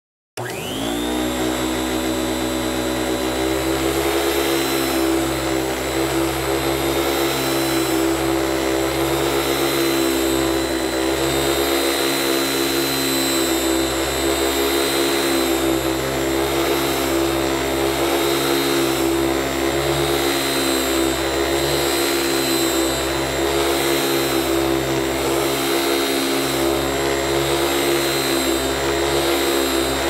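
Vacuum cleaner switching on: its motor spins up within about a second to a steady high whine over a low hum, then runs steadily.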